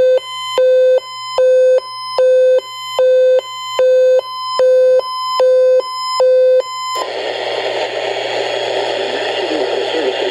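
Electronic emergency alert tone, a low and a higher pitch alternating about every 0.4 s, that cuts off suddenly about 7 s in. A steady hiss of broadcast static follows.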